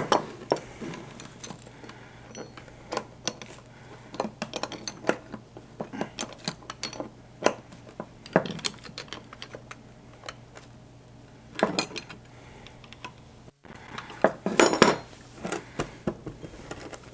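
A wrench clicking and clinking on steel bolts as engine-mount bolts are snugged up by hand, with metal tools knocking on a workbench. Irregular sharp clicks, with a clatter of ringing metal near the end.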